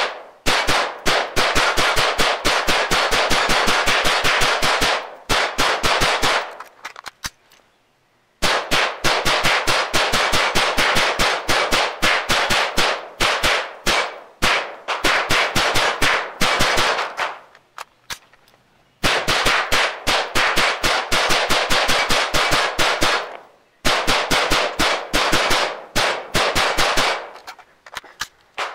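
Smith & Wesson AR-15 rifle firing rapid semi-automatic strings, several shots a second with brief pauses, and bullets striking steel silhouette targets. Heard from beside the steel plates, about 100 yards from the rifle, so each shot comes as a distant report with a trailing echo.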